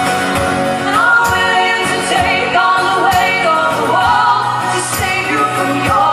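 Live folk-pop song: strummed acoustic guitars with voices singing in harmony, the singing coming in about a second in.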